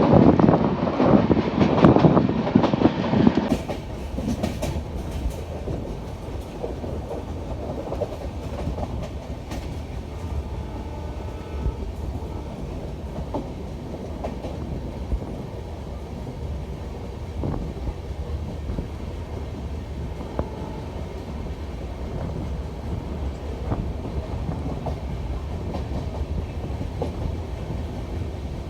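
A train running on the rails, a steady low rumble with faint scattered clicks. The first few seconds are a louder rushing noise that cuts off suddenly.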